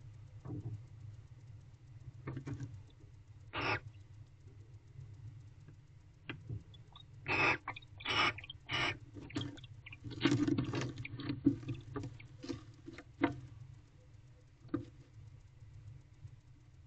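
Barn owl in a wooden nest box making a scatter of scratchy, shuffling noises and several short noisy rasps, over a low steady hum. The rasps cluster in the middle, with about three quick ones around 7 to 9 seconds in.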